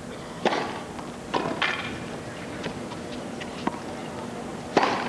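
Tennis ball bounced on a hard court before a serve: a handful of short, sharp knocks at uneven spacing over a low, steady crowd murmur.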